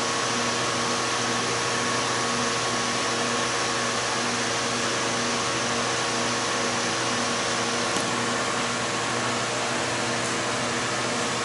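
Steady machine whir and hiss, like a running fan, with a low hum and a faintly pulsing tone underneath, and a small click about eight seconds in.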